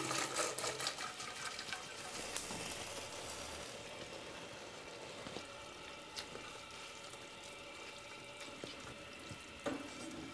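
Water pouring and dripping out of a stainless-steel pasta insert as it is lifted from the pot, loudest in the first couple of seconds and then trailing off. Afterwards faint stirring of spaghetti in the sauce pan, with a few light knocks.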